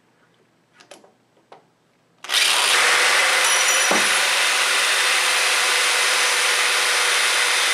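Corded electric drill boring a quarter-inch bolt hole, running at a steady speed. A few light clicks come first, the drill starts about two seconds in, and it cuts off suddenly.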